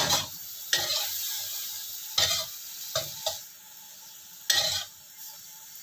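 Mixed greens and sausage stir-frying in a hot wok: a steady sizzle, broken by several sudden scrapes and clatters of the spatula tossing the food against the pan.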